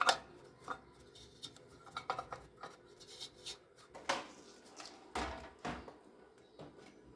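Faint scattered clicks, taps and rubbing of hands handling parts inside a desktop PC case, with a few louder knocks about four and five seconds in.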